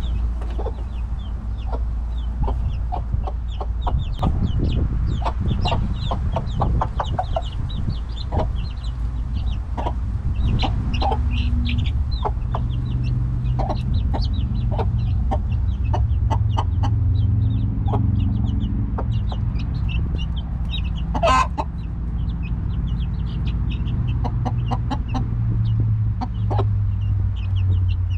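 A mother hen clucking low and softly while her chicks keep up a stream of short high peeps, with sharp little taps of pecking at the ground; one louder call stands out about two-thirds of the way through.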